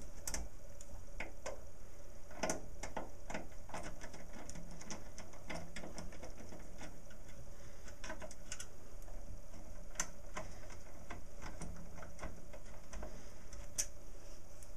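Screwdriver undoing the power supply's mounting screws on the back of a steel computer case: a run of small, irregular metallic clicks and ticks over a low steady hum.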